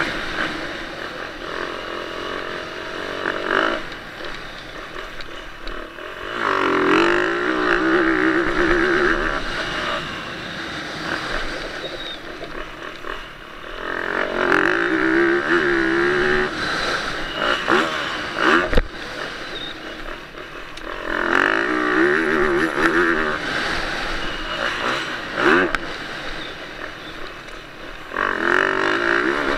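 Yamaha YZ450F four-stroke single-cylinder motocross engine under way, repeatedly revving up hard and easing off, with about four louder climbs several seconds apart. There is one sharp knock a little past the halfway point.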